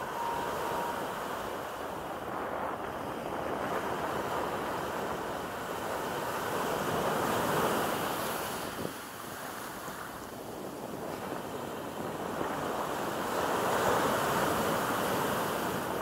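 Small sea waves breaking and washing up the shore, with foam rushing over the sand. The surf swells louder twice, about halfway through and near the end.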